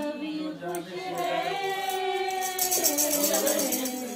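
Voices singing together in long held notes, a traditional wedding song, with a rapid, even jingling beat joining in the second half.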